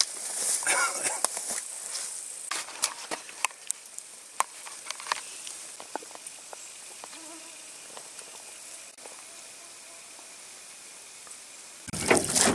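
Hands rummaging through low berry bushes while picking berries, leaves rustling with many small sharp snaps and clicks, busiest in the first five seconds and quieter after, over a faint steady high hiss. Near the end wind noise on the microphone cuts in.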